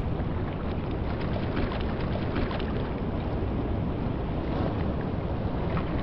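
Ocean water sloshing and washing close to the microphone at the surface: a steady rush with faint scattered ticks of small splashes.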